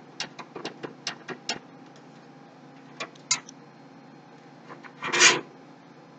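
Metal expansion-slot covers on a PC case being worked loose and removed: a quick run of light clicks and ticks, two more a little later, then a short, louder scraping rub about five seconds in.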